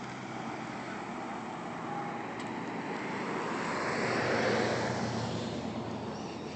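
A car driving past close by, its engine and tyre noise swelling to a peak about four seconds in and then fading.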